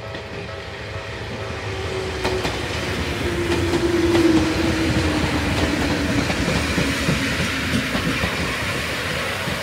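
Sangi Railway yellow-and-orange electric multiple-unit train passing close by, wheels clattering on the rails. It grows louder to a peak about four seconds in, and a motor whine slides steadily lower in pitch as the train goes by.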